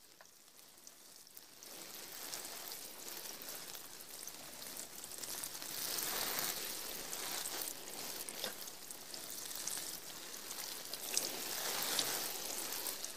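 Rain falling: a soft, steady patter with scattered drop clicks, fading in after the first second or two.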